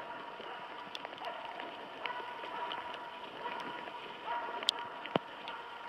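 Footsteps swishing through wet moss and low bog shrubs, about one stride a second, with a couple of sharp clicks near the end.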